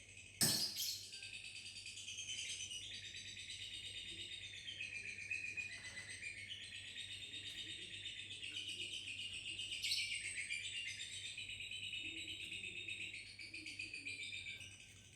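Lovebird's long, rapid chattering trill (ngekek), running on for about fourteen seconds, with a sharp knock about half a second in.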